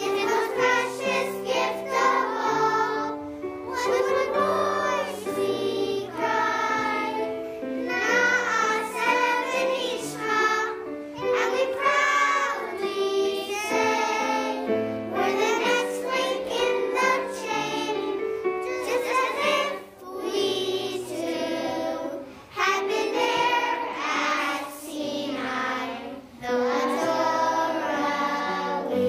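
A group of young children singing a song together in unison, with instrumental accompaniment underneath.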